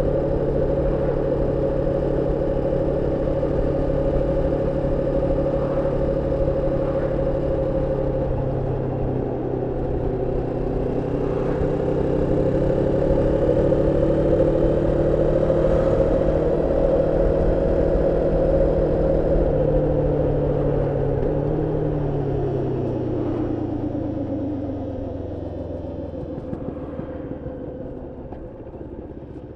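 Moto Morini X-Cape 649 cc parallel-twin motorcycle engine under way during running-in, holding a steady note, pulling a little higher from about ten seconds in, then dropping in pitch and fading from about twenty seconds as the bike slows.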